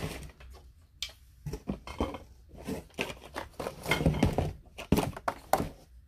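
Irregular clicks, knocks and short rustles of small objects being handled on a tabletop.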